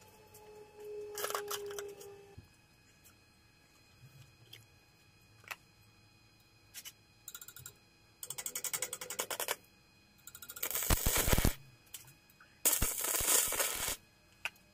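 Stick (arc) welding: three short bursts of crackling arc, each about a second long, as tack welds are struck on steel in the second half. A few small metal clicks come before them.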